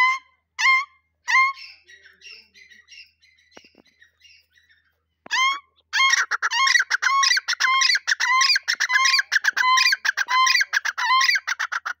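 Grey francolins calling: three loud, ringing calls at the start, softer calls after them, then from about six seconds a fast, loud run of repeated calls, about two a second, with quicker notes crowding in between.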